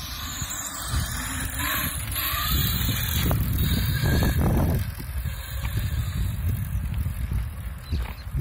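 Motor whine from a homemade four-wheeled ride-on board, rising in pitch in the first couple of seconds as it pulls away over dirt, with a heavy low rumble in the middle.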